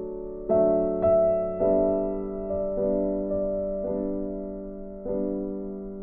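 Gentle background piano music: slow chords, a new one struck about once a second and left to ring and fade.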